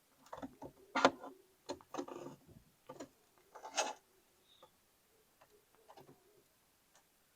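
A turtle biting and chewing food in irregular crunches and wet clicks, the loudest about a second in, growing fainter and sparser in the last few seconds.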